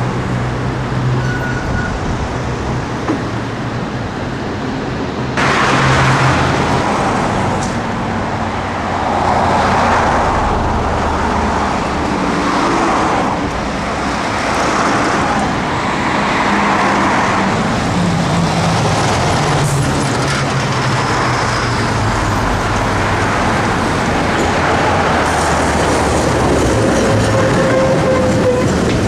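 A tram running on a street track, its wheels rumbling over the rails, mixed with road traffic. A low hum at first, then the rumble sets in abruptly about five seconds in and stays loud.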